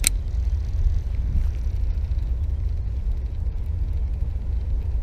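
Wind rumbling on the microphone, with a sharp click right at the start and faint light ticking as a baitcasting reel is cranked to retrieve a cast lure.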